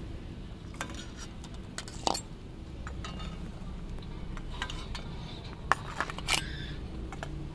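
Metal cookware and utensils clinking and knocking as a pot of boiled eggs is taken off the stove and handled: scattered light taps, with a few sharper knocks about two seconds in and near six seconds, over a low steady rumble.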